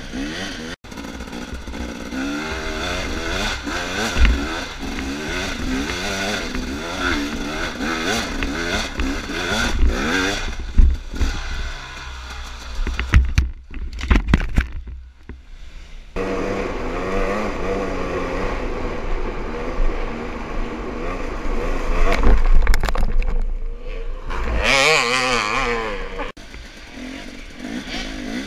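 Dirt bike engine revving up and down while riding a rough trail, with clatter and knocks from the bike over the ground. About halfway through, the engine sound breaks off amid several sharp knocks, then picks up again and revs hard a few seconds later.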